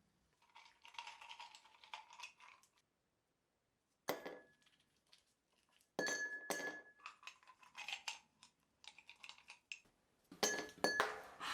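Dishes and utensils clinking and clattering in several short bursts, a few strikes leaving a brief ringing tone like glass or metal. Dead silence for about a second near three seconds in.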